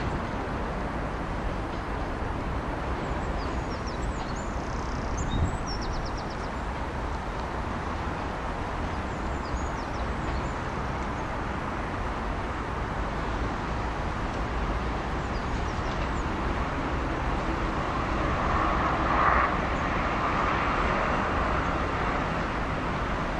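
Class 158 diesel multiple unit pulling away, its engines and wheels on the rails a steady rumble. There is a brief louder swell about nineteen seconds in.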